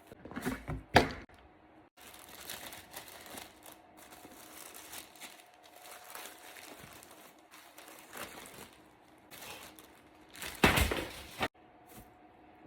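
Paper packaging rustling and crinkling as a bag is unwrapped from its box, with a few sharp knocks in the first second and a louder burst of rustling about ten seconds in that stops abruptly.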